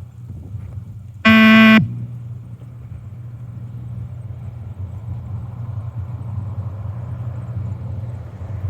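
One electronic beep from a beep-test (multi-stage shuttle run) recording, a buzzy half-second tone signalling that the runner should reach the line. A steady low hum runs underneath.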